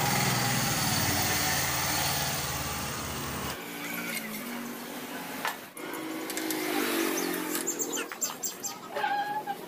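A motor running steadily, cutting off suddenly about three and a half seconds in, followed by scattered light clicks and clinks.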